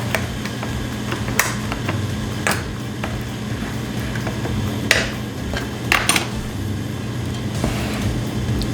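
Sharp knocks and clicks, about half a dozen at uneven intervals, two close together near the middle, as a can of coconut milk is opened, over a steady low hum.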